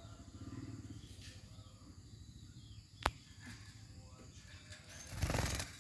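Faint, short high-pitched calls of female blue-crowned hanging parrots (serindit) over a low steady background hum, with a sharp click about three seconds in and a brief louder noisy burst a little after five seconds.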